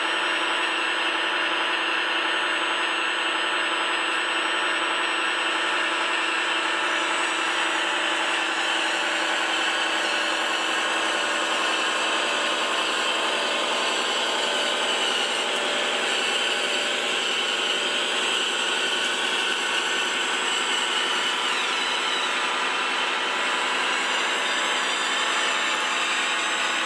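Radio-controlled model construction machinery running: the electric motors and drive gears give a steady, high whine made of several tones at once, with little change in level.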